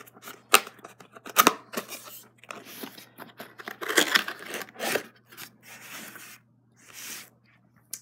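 A cardboard keyboard box being opened by hand: the lid rubbing and scraping as it is worked loose, with a few sharp taps and a louder rustle about four seconds in.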